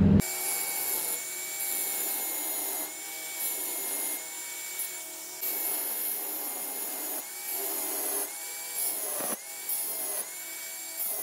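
Angle grinder with a thin abrasive cut-off disc running and cutting through the metal diaphragm of a differential pressure transmitter's sensor capsule. A steady high motor whine with a gritty grinding hiss that comes and goes as the disc is pressed on; in the second half the whine sags in pitch several times as the disc bites and recovers.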